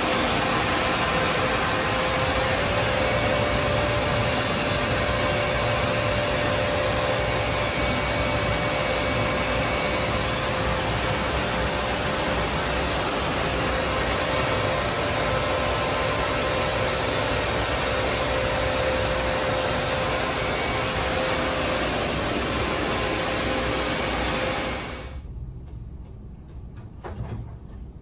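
Car wash dryer blowers running with a steady rush of air and a faint steady whine. About 25 seconds in the noise cuts off suddenly, leaving a much quieter background.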